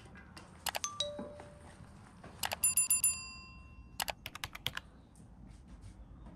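Clinks and taps of metal on metal, like cooking utensils against metal cookware. A few clicks come first, then a quick run of strikes about two and a half seconds in rings briefly and is the loudest part, then more scattered taps.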